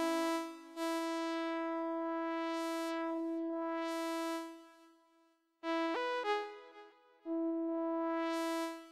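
Yamaha SX900 arranger keyboard playing a soft synth voice: a held chord that fades out, a quick run of notes with a short upward pitch glide, then another held chord, while the filter cutoff knob is turned down.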